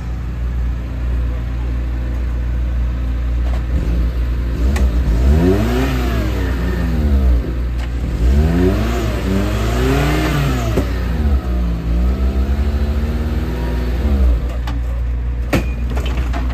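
Off-road 4x4's engine revving up and falling back three times in a row over a steady low rumble, with a few short knocks near the end.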